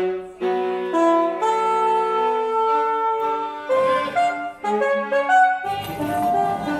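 Contemporary chamber music: a single-reed wind instrument plays long held notes that change pitch every second or so, over other sustained tones. A denser, lower-pitched texture comes in near the end.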